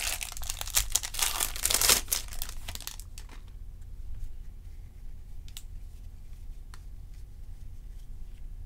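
Plastic trading-card packaging crinkling and tearing for about three seconds, then a few faint clicks as the cards are handled.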